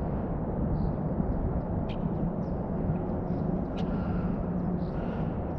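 Steady low rumble of outdoor background noise, with a few faint high chirps and two sharp clicks, about two and nearly four seconds in.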